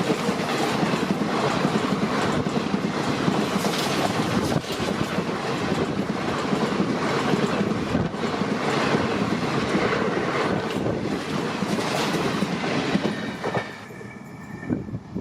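Indian Railways passenger train passing close by, its coach wheels clattering over the rail joints with a rapid clickety-clack and some wheel squeal. The sound drops off suddenly near the end as the last coach goes by.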